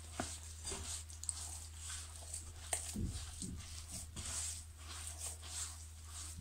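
A hand mixing and gathering flour into a soft dough in a glass bowl: repeated rubbing, squishing strokes with a few light clicks against the glass. A steady low hum runs underneath.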